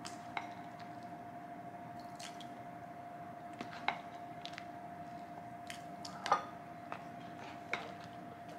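Thick congee being ladled from a ceramic pot into a bowl with a plastic ladle: soft wet squelches and a scattering of light knocks of the ladle against the pot, the loudest about six seconds in. A steady faint hum runs underneath.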